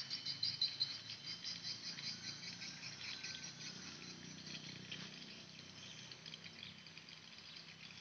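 A chorus of insects chirring: a high-pitched, rapidly pulsing buzz that goes on without a break, with a faint low hum underneath.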